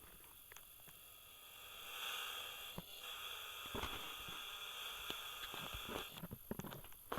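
A faint, breathy whistle that is mostly air, from about two seconds in until about six seconds, with scattered small clicks.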